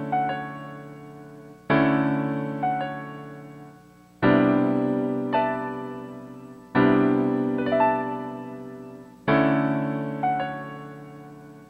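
Slow piano music: a sustained chord struck about every two and a half seconds, each followed a second later by a single higher note, left to ring and fade.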